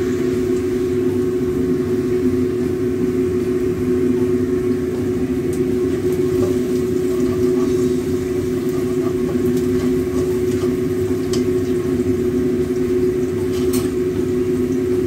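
Steady hum of a kitchen exhaust fan running, with a few light taps of a metal spatula against the wok.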